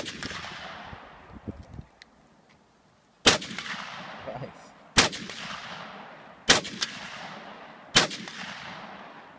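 SKS semi-automatic rifle (7.62×39) firing: one shot right at the start, then after a pause of about three seconds four more, evenly spaced about a second and a half apart. Each sharp crack trails off in a long echo.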